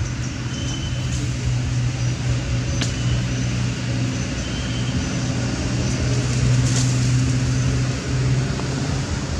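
A steady low mechanical hum, like a motor running, over a noisy outdoor background, with a few faint clicks.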